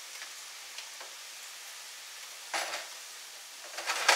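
Diced onions sautéing and sizzling in fat in a skillet, a steady faint hiss. A spatula scrapes and stirs them in the pan once about two and a half seconds in and again, louder, near the end.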